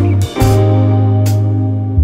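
Background music: guitar over a steady bass line, with drum hits.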